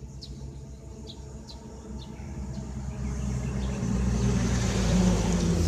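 Motor vehicle engine running, growing louder from about three seconds in as it comes closer.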